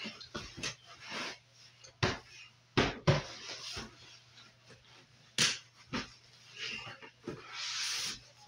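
Bedding rustling, with a series of bumps and knocks, as someone moves around on a bed right next to the phone; a steady low hum runs underneath.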